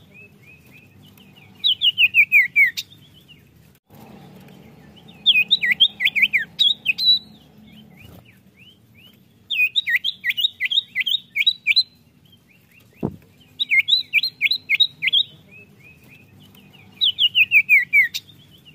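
Common iora (cipoh) singing: loud phrases of five to eight quick notes, each note dropping in pitch. The phrases come about every three to four seconds, with some running down the scale, and softer single notes fill the gaps between them. A single sharp click sounds about two-thirds of the way in.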